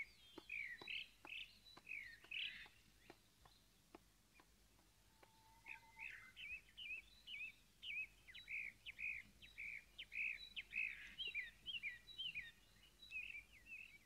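Small birds chirping faintly in short rising-and-falling notes, a few at first, then a busy run of chirps from about six seconds in.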